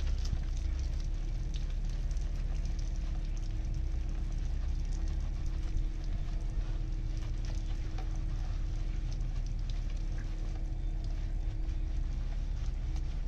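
Wash mitt rubbing over the wet bodywork of a Land Rover Defender, with water dripping and pattering onto paving in faint scattered ticks, over a steady low rumble and hum.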